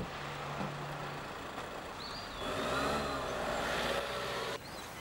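Mercedes-Benz Vito van's engine running, then revving up as the van pulls away about two and a half seconds in. The sound cuts off suddenly near the end.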